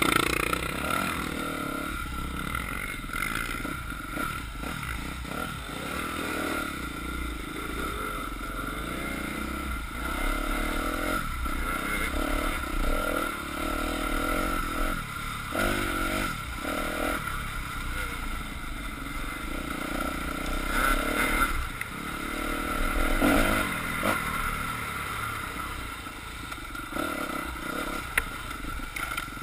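Dirt bike engine running while the bike is ridden along a trail, rising and falling every second or two as the throttle opens and closes, heard from a camera mounted on the rider.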